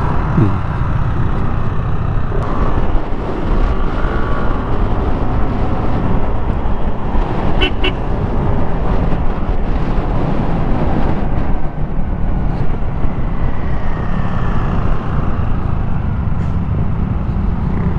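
Motorcycle on the move: steady engine and road noise, with a short high beep about eight seconds in.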